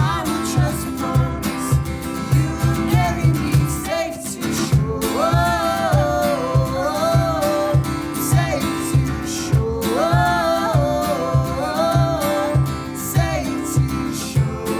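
Music with acoustic guitar, a steady beat and a singer, sung phrases entering about five seconds in and again about ten seconds in.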